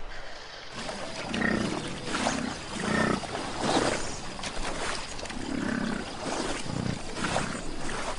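Large wild animals growling and roaring in a series of short, loud calls, about eight in all, with a pause near the middle.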